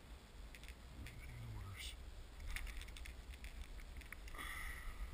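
Low wind rumble on the microphone with a few faint clicks and ticks from handling the fishing rod and lure while unhooking a cutthroat trout beside the boat.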